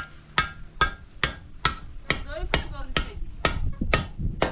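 A steady run of hard, evenly spaced knocks, about two and a half a second, each leaving a short metallic ring: something hard is being struck over and over, like hammering or pounding.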